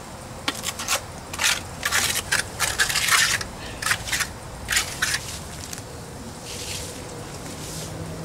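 A mason's trowel scraping and slapping stiff cement onto a cinder block wall in a quick run of about ten short strokes, laying on the first coat. Near the end, softer swishes of a broom brushing the wet cement.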